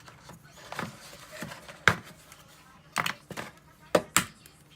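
Eggs being cracked on the hard edge of a bowl: about six sharp, irregular taps and knocks of shell on the rim, the loudest about two seconds in.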